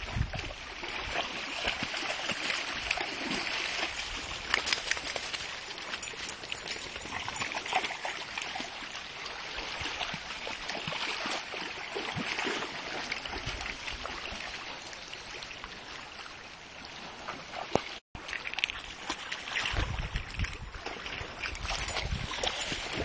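Water splashing and lapping as dogs wade in shallow water at the shore, a steady wash of small splashes. A low rumble on the microphone comes in near the end.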